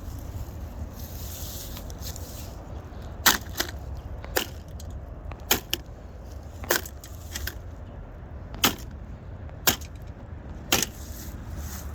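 Seven sharp knocks, roughly one a second, over a steady low rumble.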